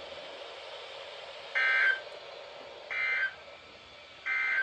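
Three short bursts of EAS SAME digital data, each a raspy, buzzing warble, about 1.3 seconds apart: the end-of-message code that closes an Emergency Alert System severe thunderstorm warning. A steady faint broadcast hiss lies beneath.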